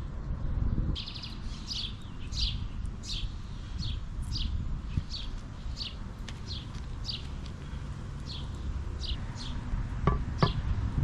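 A songbird singing a steady series of short, high, down-slurred notes, one about every half second, over a constant low rumble. Two sharp clicks come near the end.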